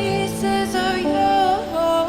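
Background music: sustained melodic notes shifting in pitch, with a soft sung or vocal-like line.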